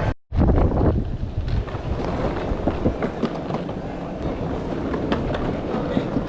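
Skateboard wheels rolling over rough street pavement, a steady rumble with scattered clicks over cracks and joints, and wind buffeting the microphone. A brief silent gap right at the start.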